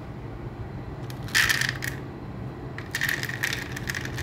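Dry cat kibble tipped onto a window ledge, the hard pellets clattering and scattering in two bursts, about a second in and again from about three seconds in.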